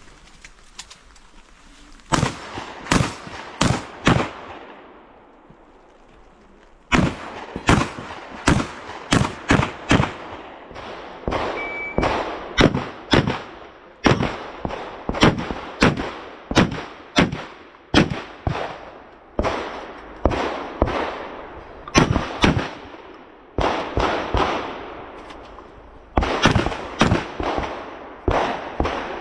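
Shotgun fired in quick strings during an IPSC dynamic shotgun stage: about five shots in quick succession, a pause of a few seconds, then a long run of shots roughly two a second with short breaks.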